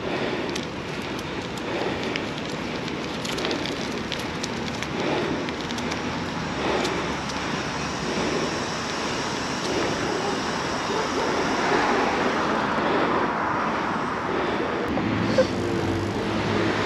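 Steady rushing noise of riding a bicycle along a road: wind on the microphone and road noise, with passing traffic. A low steady hum comes in near the end.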